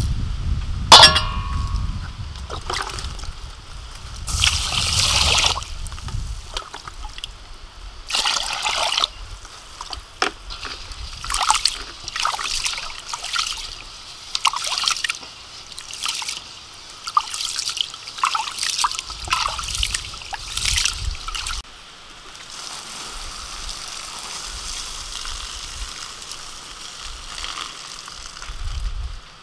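Raw rice being washed by hand in water in a stainless steel bowl: repeated short sloshing swishes, with a sharp knock about a second in. In the last several seconds the sound turns to a steady trickle as the cloudy rinse water is poured off.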